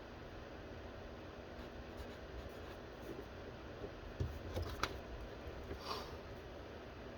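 Faint scratching of a pen drawing on paper, with a few small taps and knocks about four to six seconds in, over a steady low hum.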